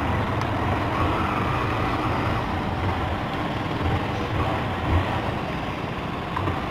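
Engine of a new Honda 160 cc single-cylinder motorcycle running as the bike slows to a stop, with tyre hiss from the wet road.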